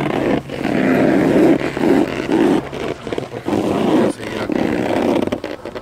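Wind buffeting the phone's microphone as the rider moves down the slope: an uneven, gusting rumble that swells and dips.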